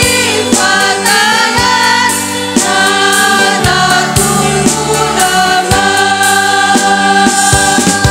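Women's choir singing together, with some long held notes, accompanied by an electronic keyboard with a light beat.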